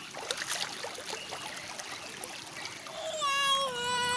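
Shallow stream water trickling and splashing with small scattered splashes. About three seconds in, a child's voice holds one long high note that falls slightly in pitch.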